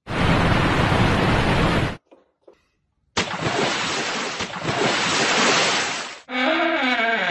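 Milk poured from a plastic gallon jug into a mug, played as a loud, exaggerated rushing like surf for about two seconds. After a short gap comes a second long rushing noise of the same kind while an Oreo is dunked in the mug and bitten. Near the end a short pitched sound with falling tones begins.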